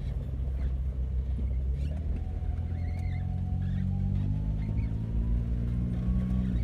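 Vehicle engine running steadily while driving, with road rumble. Its pitch rises slowly from about two seconds in as it speeds up.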